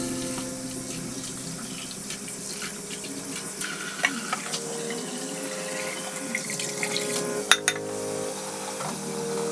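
Water running from a tap into a sink, with a few light clinks, over soft acoustic guitar background music.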